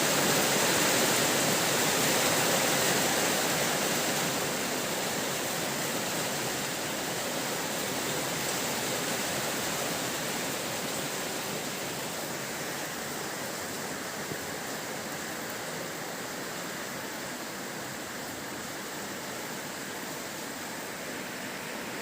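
Heavy rain falling in a steady, dense hiss that slowly grows quieter.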